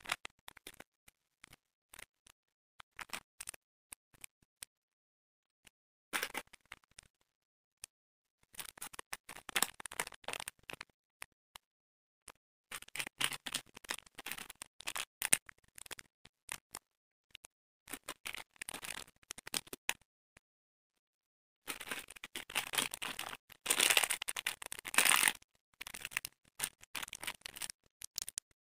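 Plastic candy and chocolate wrappers crinkling and rustling as they are handled, in irregular crackly bursts with silent gaps between, loudest about three-quarters of the way through.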